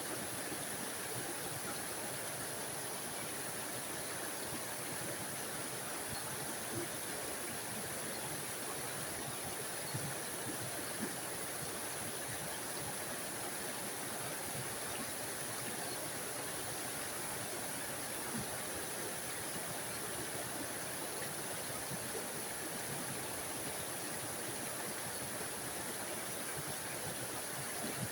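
Small forest waterfall splashing steadily into a mountain stream, an even rushing hiss with a few small splashes.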